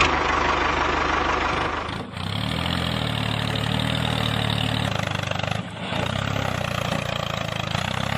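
Tractor engine running steadily, with brief dips about two seconds in and again just before six seconds.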